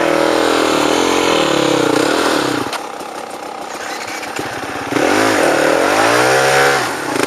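Off-road dirt bike engine revving up and down under throttle. Two loud stretches of rising and falling revs are separated by a quieter, lower-revving lull of about two seconds in the middle.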